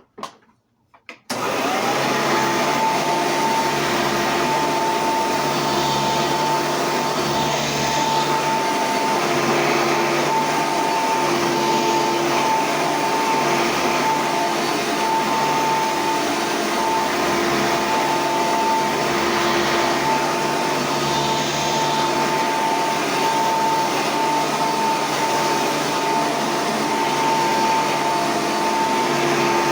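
Hoover Preferred upright vacuum cleaner switched on about a second in. Its motor spins up and then runs steadily with a constant whine.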